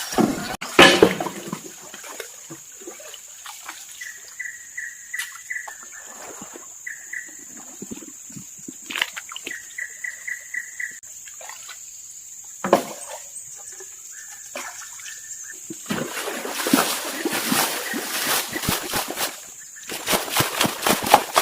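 Water splashing and sloshing, sparse at first and then quick and continuous over the last several seconds, against a steady high whine. Three short runs of quick repeated chirps come in the middle.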